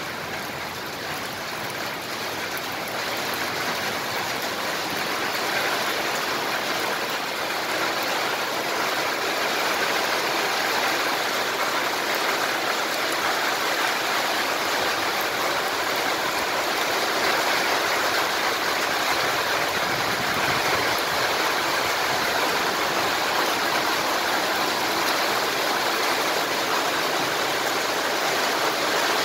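Heavy rain pouring steadily onto wet paving stones, a dense even hiss that grows a little louder over the first few seconds.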